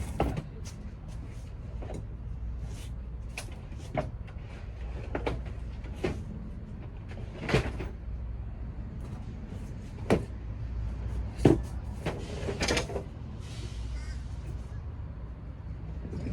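Irregular knocks, bangs and clunks of heavy household items being shifted and set down, with a brief rattling clatter about twelve seconds in, over a steady low hum.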